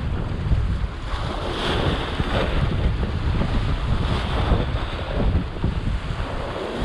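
Ocean surf breaking and washing over rocks, swelling and falling with each wave, with heavy wind buffeting the microphone as a low rumble.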